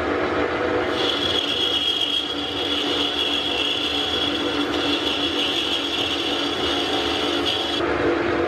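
Metal lathe running while a carbide-insert turning tool cuts a brass workpiece: a steady machine hum under a high, steady cutting whine. The whine starts about a second in and stops near the end, once the tool is clear of the work.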